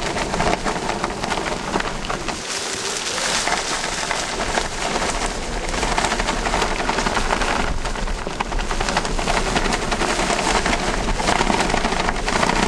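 Hurricane-force wind and driving rain rushing over the microphone: a steady noise with a low rumble that swells in gusts.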